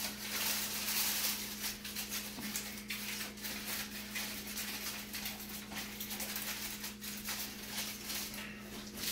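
Aluminium foil crinkling and crackling in quick irregular bursts as it is pressed and crimped tight around the edge of a pan, with a steady low hum underneath.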